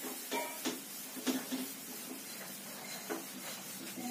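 Whiteboard eraser wiping across the board in a few short swishes, with a faint steady hum underneath.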